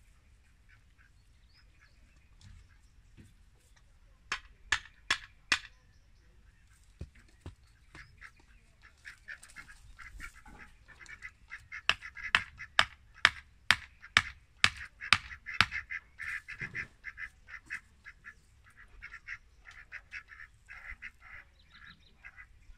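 Hammer blows on wood: four quick strikes about four seconds in, then a longer run of about nine strikes in the middle. Domestic fowl call in rapid, repeated notes through the second half.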